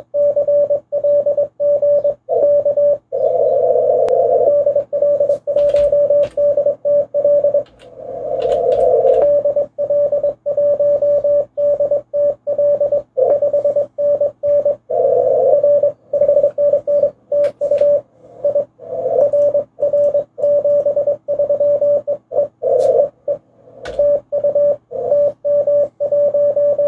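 Morse code (CW) tones from an amateur radio transceiver, a note of about 600 Hz keyed at a brisk pace through a full contact: a CQ call, a 599 signal report and a closing TU. A few passages come through louder and rougher, over a faint steady hum and band noise.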